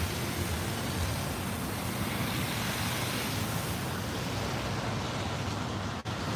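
Steady rush of floodwater running fast along a street from what appears to be a broken water main, with wind rumbling on the microphone. The sound drops out for an instant near the end.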